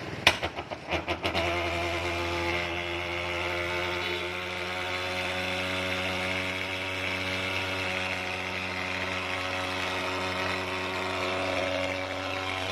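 Mosquito fogging machine starting: a few sharp pops in the first second or so, then it catches and runs with a steady, even drone.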